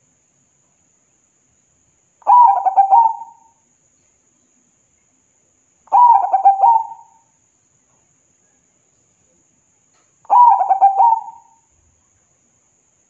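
Zebra dove (perkutut) cooing: three phrases about four seconds apart, each a quick run of pulsing notes lasting just over a second.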